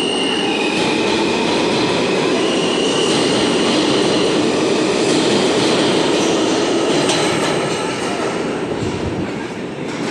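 R160 subway train pulling out of the station and running past close by: a loud, steady rumble of the cars and wheels on the rails, with a faint rising motor whine as it gathers speed. A few sharp clicks come about seven seconds in, and the sound eases as the last car leaves near the end.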